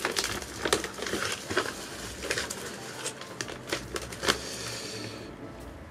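Plastic and paper packaging crinkling and rustling as it is opened and unwrapped by hand, in irregular crackles that die down near the end.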